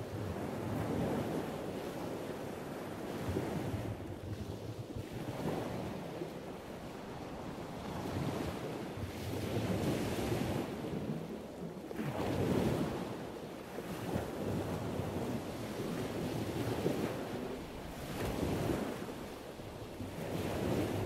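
Ocean surf: waves washing in and drawing back, a rushing noise that swells and fades every few seconds.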